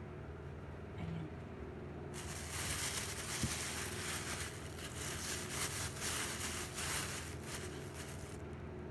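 Rustling and crinkling of food wrapping being handled, starting about two seconds in and cutting off shortly before the end.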